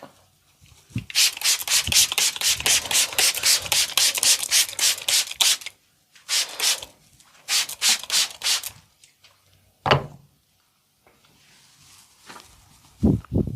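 Hands rubbing briskly over hair and scalp in an Indian head massage: a quick run of rasping strokes, about four or five a second, then two shorter runs. A sharp thump comes near the middle and two low thuds near the end.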